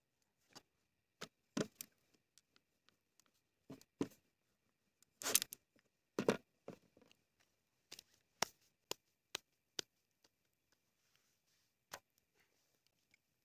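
A rolling pin and hands knocking and tapping on a plastic cutting board as roti dough is rolled out, in irregular short clicks with two louder knocks about five and six seconds in.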